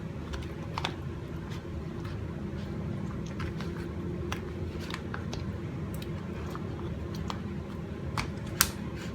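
Scattered light clicks and taps from handling a salmon fillet in its marinade dish, over a steady low hum from a fan or kitchen appliance. One sharper click comes near the end.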